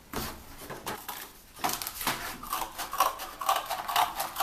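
Corrugated cardboard being folded and worked on a tabletop: a run of crackles, scrapes and small knocks that grows denser about one and a half seconds in.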